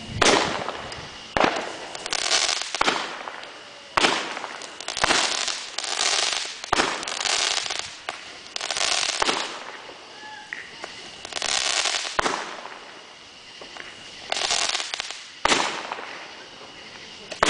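Backyard fireworks going off in a series: sharp bangs, each followed by about a second of crackling sizzle, repeating every couple of seconds.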